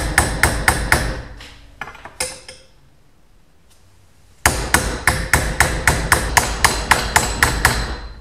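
Hammer striking an aluminium scooter brake lever clamped in a bench vise, quick light blows about four to five a second to straighten the bend a little at a time. After a few spaced blows there is a pause of about two seconds, then another fast run of blows.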